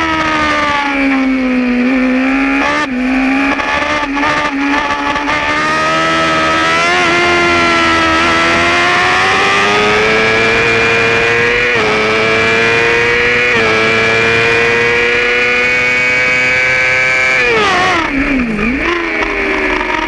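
Yamaha R6 stock-spec sport bike's inline-four engine at racing revs: the pitch falls at first under braking, then climbs through several quick upshifts, pulls high for several seconds, drops sharply with downshifts near the end and starts rising again.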